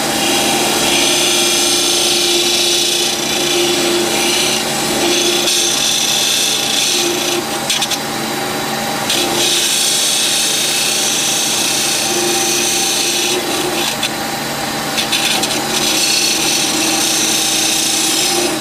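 DL 300 profile knife grinder's wheel grinding the wavy profile of a steel moulder knife under coolant spray, over a steady motor hum. The high grinding hiss swells and fades in passes about every four to five seconds.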